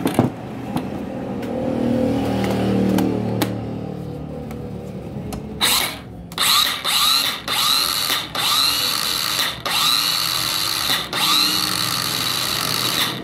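National EZ3500 12V cordless power cutter running with no load: a lower hum in the first few seconds, then the motor and blade whirring in a series of short bursts, rising in pitch at the start of each as the trigger is pulled and released repeatedly.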